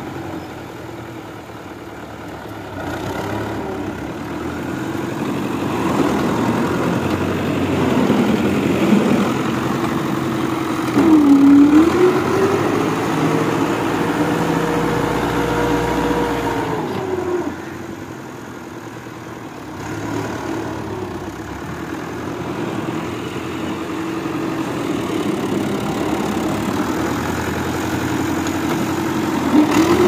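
Fiat tractor's diesel engine running while pushing manure and soil with a rear scraper blade. The revs rise sharply about a third of the way in, hold for several seconds, and drop back just past halfway.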